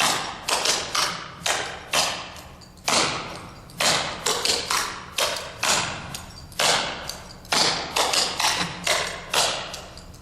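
Clogging shoes' metal taps striking a hard floor, beaten out in the beginner 'step, step, basic' pattern at about two to three sharp, ringing strikes a second.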